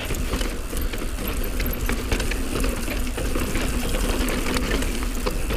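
Mountain bike rolling down a dry dirt trail: a steady rush of tyre noise and wind on the camera microphone, with rapid small clicks and rattles from the bike.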